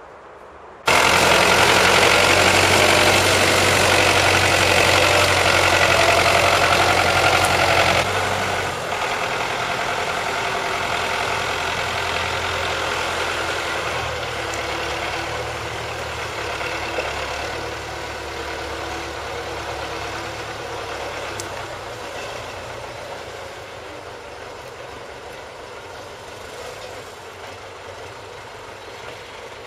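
Wheeled front-loader tractor's engine running steadily while it loads cut logs. It comes in loud about a second in, drops in level around eight seconds and fades gradually through the rest.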